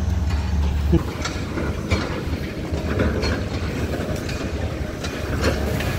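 Construction site machinery: a heavy engine's low rumble that drops away about a second in, then irregular metallic clanks and knocks.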